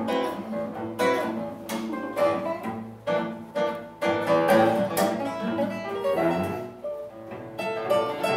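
Nylon-string classical guitar and cello playing together as an acoustic duet: the guitar's plucked notes with sharp attacks over the cello's held bowed notes.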